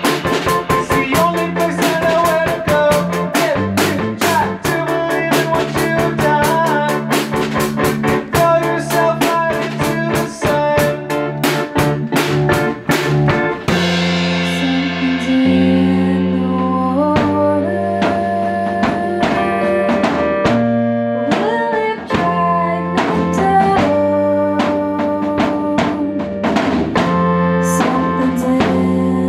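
Live rock band playing: busy, fast drumming on a drum kit over bass and guitar. About halfway through, the drumming thins out, leaving held bass and guitar notes that move in steps, with drum hits picking up again near the end.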